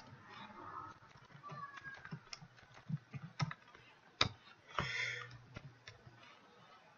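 Computer keyboard typing: scattered, irregular keystrokes, with one sharper key click about four seconds in. A brief hiss follows about a second later.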